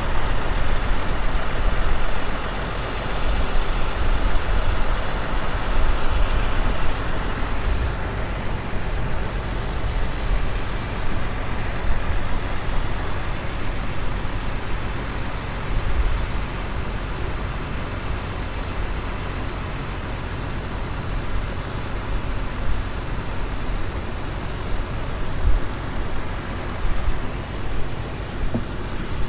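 Heavy vehicle engine running steadily under load while a dead rock truck is towed on a chain to pull-start it. The sound is a little fuller for the first seven seconds or so, then settles.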